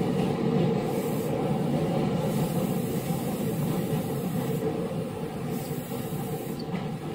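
Onboard running noise of a refurbished Osaka Metro 66 series train under way: a steady rumble of wheels on rail, with a high hiss that comes and goes several times. The noise eases slightly near the end.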